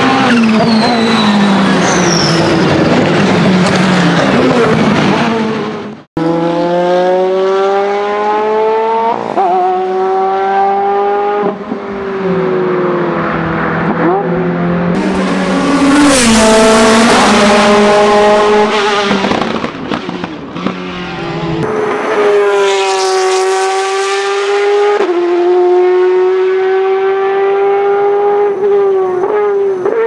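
Ferrari GT race-car V8s at full throttle. First the twin-turbo V8 of a 488 GTE passes, its pitch falling. After a sudden cut about six seconds in, an F430 GTC's 4.0-litre V8 revs high and upshifts again and again, the pitch climbing and snapping down every second or two. Near the end another V8 race car pulls through its gears the same way.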